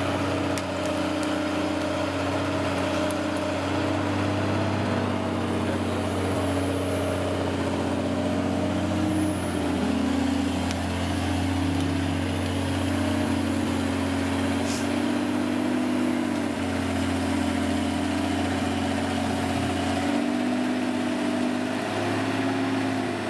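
Boom crane truck's engine running steadily, its note shifting about ten seconds in and again around seventeen seconds.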